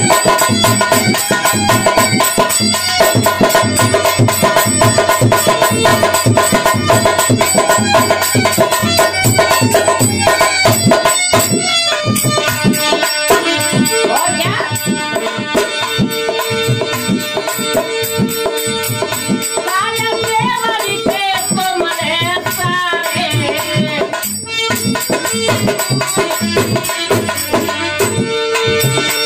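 Devotional folk music: a harmonium playing sustained chords and melody over a dholak drum keeping a steady beat. About twelve seconds in, the sound becomes sparser.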